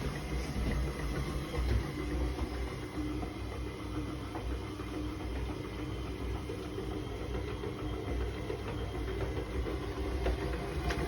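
Electric stand mixer running steadily, its motor humming as it beats flour into shortbread dough.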